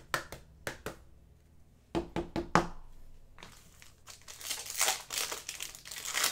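A few sharp clicks and knocks, then a foil Panini Prizm basketball card pack crinkling loudly as it is handled and torn open by hand from about three and a half seconds in.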